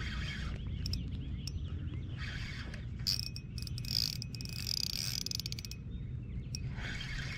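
Crickets chirping in pulses over a steady low rumble, with a run of rapid mechanical clicking from about three to five and a half seconds in.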